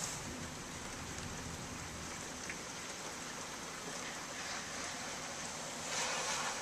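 Steady thunderstorm rain, an even hiss of downpour, swelling to a louder rush near the end.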